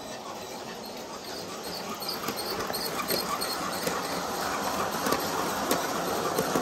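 Bachmann G-scale model train, Percy pulling trucks and coaches, running on a floor layout: a steady rolling rattle of wheels on the track with rhythmic clicks and a few sharper knocks over the rail joints. It grows louder in the second half as the cars pass close by.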